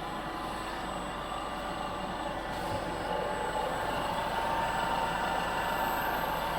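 Steady mechanical running noise that gets slightly louder about three seconds in.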